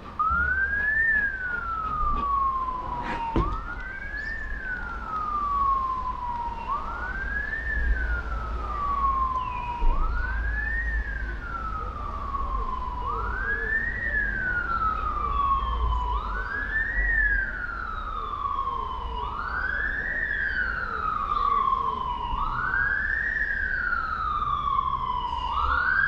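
Emergency vehicle siren in wail mode: a tone that rises quickly and falls slowly, repeating about every three seconds, over a low rumble. A single sharp knock sounds about three seconds in.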